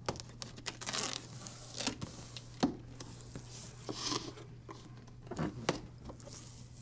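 Cardboard box being opened by hand: scattered rustles, scrapes and light knocks as the flaps are worked loose and lifted, with one sharper knock about two and a half seconds in. A faint steady low hum sits underneath.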